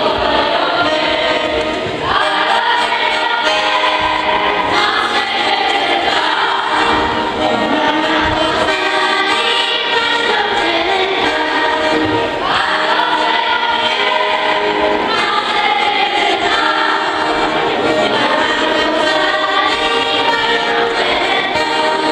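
A group of children singing together, accompanied by an accordion.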